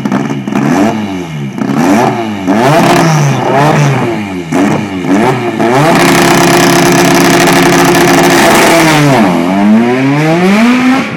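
Race car engine at the start line revved in a string of quick throttle blips, then held at high revs for about three seconds. The revs then drop and climb again as the car launches and pulls away.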